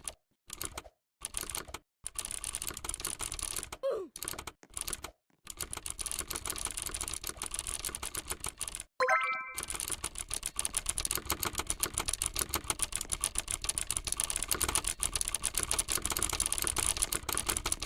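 Rapid clatter of computer keyboard keys being typed on, in bursts broken by abrupt silent cuts, with a short bell-like ding about nine seconds in.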